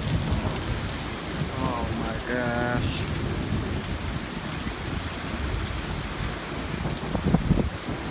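Heavy rain pouring down in a severe thunderstorm, a steady hiss with a low rumble underneath that swells a few times, most strongly a little before the end.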